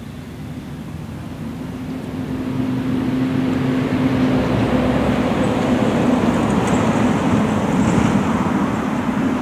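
A motor vehicle's engine running with a steady low hum over a road-traffic hiss. It grows louder over the first few seconds, then holds.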